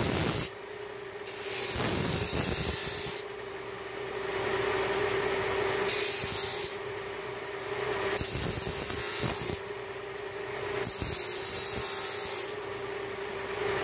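Bench-top combination belt and disc sander running with a steady motor hum, its sanding disc grinding the edge of a wooden panel. The grinding comes in repeated passes of a second or two as the panel is pressed on and eased off.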